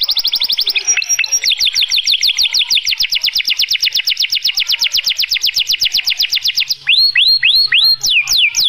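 White male canary singing: a long, fast trill of quickly repeated rising notes, then, near the end, slower whistled notes that each fall in pitch.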